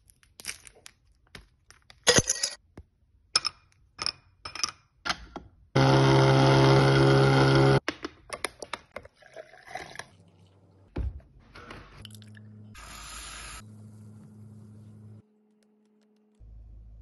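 Crinkling and snapping of a Hershey's Cookies 'n' Creme bar's wrapper, then a handheld battery milk frother buzzing steadily for about two seconds as it whips milk into foam, followed by scattered clicks and a low hum.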